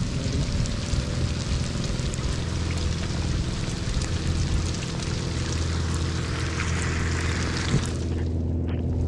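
Small outrigger boat's engine running steadily under way, with rain hissing on the sea around it. The hiss drops away suddenly about eight seconds in, leaving the engine's hum.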